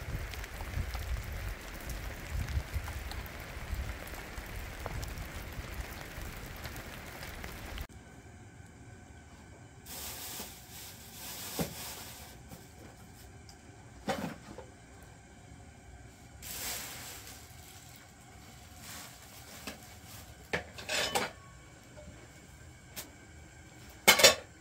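Steady rain for the first several seconds, stopping abruptly. Then kitchen sounds: metal pots and utensils scraping and clinking, with a few sharp clanks, the loudest near the end.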